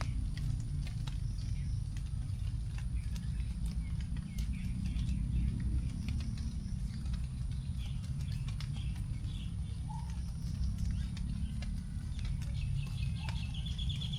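Scattered raindrops dripping and pattering onto leaves after rain, with short bird chirps and a rapid trill near the end, over a steady low rumble.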